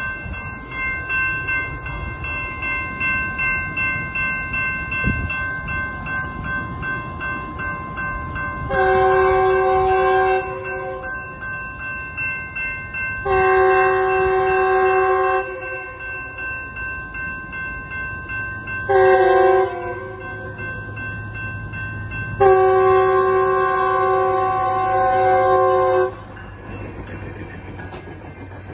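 Metrolink F125 locomotive's multi-tone horn sounding the grade-crossing signal: long, long, short, long, over the steady ringing of the crossing-signal bells. The last blast runs until the train reaches the crossing, and the low rumble of the passing train follows near the end.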